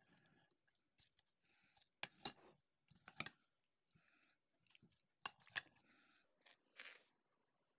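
Metal spoon stirring a salad dressed in mayonnaise and yogurt in a bowl. Soft stirring noises run between about five sharp clicks of the spoon against the bowl, two of them about two seconds in and two more past the five-second mark.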